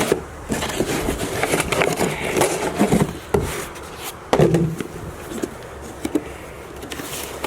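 A parcel being opened one-handed and the parts inside handled: irregular rustling, scraping and small knocks, with a short squeak-like pitched sound about halfway through.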